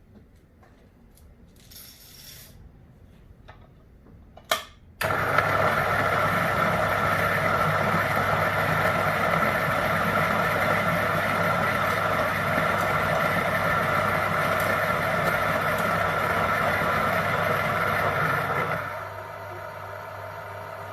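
Electric burr coffee grinder: a few light handling clicks and a sharp click, then the motor starts and grinds a single dose of espresso beans with a loud, steady whir for about fourteen seconds. Near the end the sound drops to a quieter steady hum as the beans run out and the burrs spin empty.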